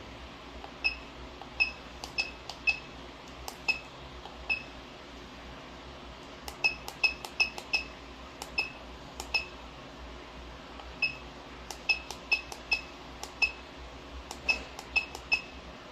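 CTG-9000FN coating thickness gauge beeping at each press of its arrow keys, about thirty short high beeps at an uneven pace, sometimes in quick runs of several a second. The keys are stepping the digits of a calibration specimen's true thickness value into the gauge.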